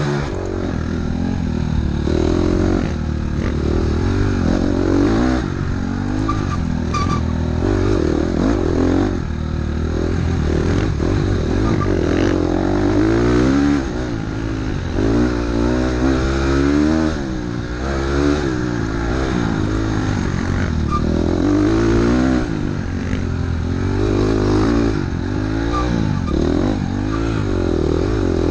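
Dirt bike engine revving up and dropping back again and again as the rider works the throttle along a trail, with short dips in the engine's loudness about halfway through.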